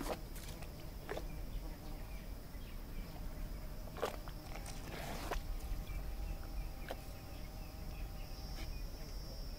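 African elephants drinking at a waterhole: a few short, sharp splashing and scuffing sounds as water is squirted from the trunk into the mouth, over a steady low background noise. Faint insect chirps run throughout, and a high steady insect buzz starts near the end.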